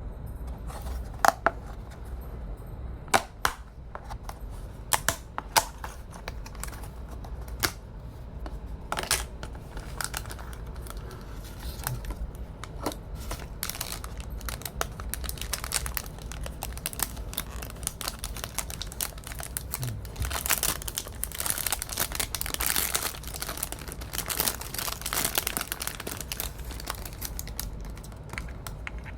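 Packaging being handled and opened: a few sharp clicks and taps, then a long stretch of crinkling and tearing that gets busier in the second half.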